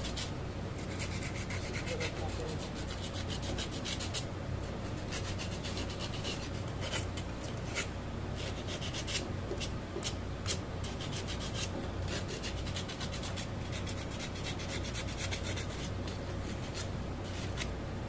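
Sandpaper rubbed back and forth on a copper refrigerant tube at a refrigerator compressor, a quick, irregular scraping that scours the copper clean for brazing.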